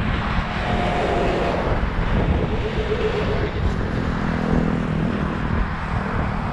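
Strong wind buffeting the microphone: a steady low rumble with hiss.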